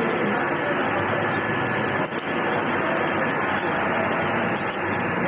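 Steady machine noise of a garment-factory sewing floor, with industrial sewing machines running and voices in the background.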